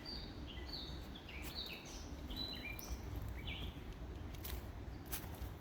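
A small songbird chirping in a quick run of short, high notes for the first three and a half seconds, over a steady low rumble, with a few sharp clicks near the end.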